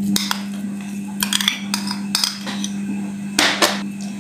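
Clinks and knocks of a glass container and utensil against a glass mixing bowl as soft butter is scraped and tapped out into it. There are several separate taps, the loudest two close together near the end, over a steady low hum.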